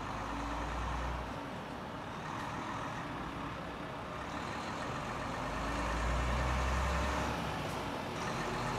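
Convoy of trucks running on a road: a steady engine rumble and road noise, with a deeper rumble that swells about a second in and again around six to seven seconds as vehicles come close. It cuts off suddenly at the end.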